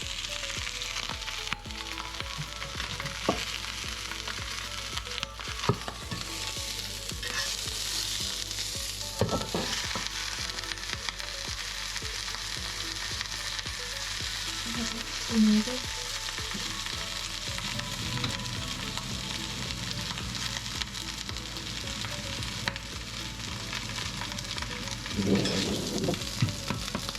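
Pieces of squid sizzling steadily as they fry in a hot pan and are stirred, with scattered sharp clicks and a few louder knocks.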